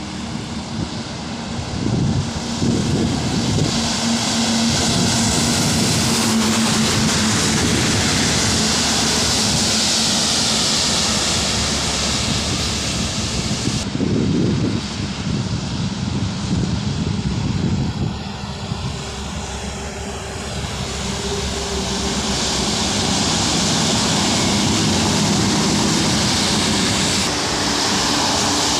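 Heavy goods trucks passing on a wet highway: diesel engines droning steadily and tyres hissing on the rain-soaked road, with an abrupt change about halfway through.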